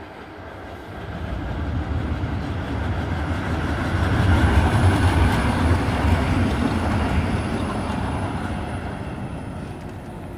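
Škoda 15T articulated low-floor tram running past on the rails. Its rumble and wheel-on-rail noise build as it approaches, are loudest about halfway through as it passes close by, then fade as it rolls away.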